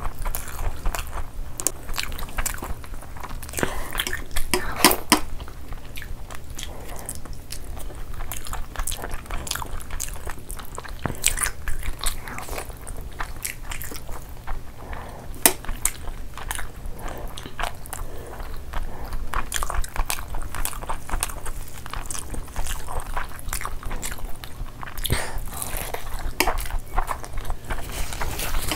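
Close-miked ASMR eating: two people chewing and biting mouthfuls of rice and curry eaten by hand, with many irregular sharp clicks.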